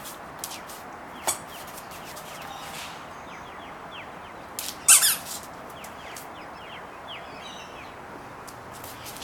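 Dog's squeaky toy squeaking as the dog plays with it: a short squeak about a second in and a louder, longer squeak about five seconds in, with light clicks and taps in between.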